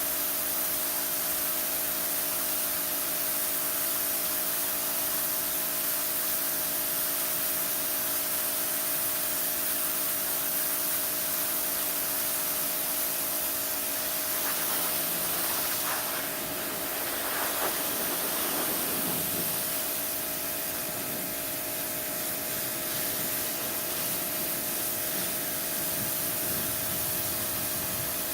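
A 2200 psi electric pressure washer spraying a concrete driveway: a steady hiss of the water jet over the washer's motor and pump humming at a constant pitch. Past the middle the spray sound changes for a few seconds, then settles again.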